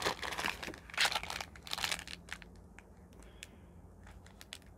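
Ration food packets crinkling and rustling as they are handled, busiest in the first couple of seconds, then a few lighter rustles and clicks.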